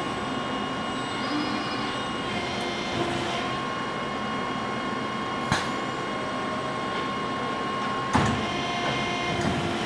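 Robotic tube-bending cell running: a Yaskawa robot arm and a SOCO multi-radius tube bender give a steady machine hum with several whining tones. A sharp click comes about five and a half seconds in and a louder clack about eight seconds in.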